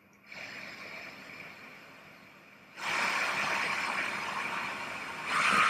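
Hamilton T1 ventilator pushing gas through its breathing circuit and flow sensor during the flow sensor calibration: a steady hiss that starts just after the beginning and steps up louder about three seconds in and again near the end, where a faint whistling tone joins it.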